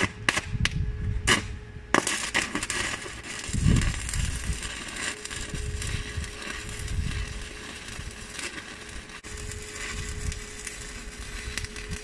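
Electric arc welding on a steel stair step: a few short crackling starts of the arc in the first two seconds, then a continuous crackling, sizzling weld run, with a faint steady hum underneath.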